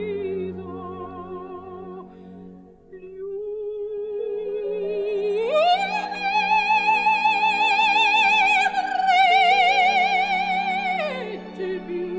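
Operatic singing with heavy vibrato over a low sustained accompaniment. The voice climbs to a long high note about five seconds in, holds it for about five seconds, then drops back down near the end.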